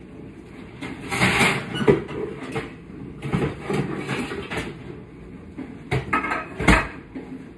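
Kitchen clatter: dishes, utensils and cupboards being handled in three short spells, with a sharp knock about two seconds in and another near the end.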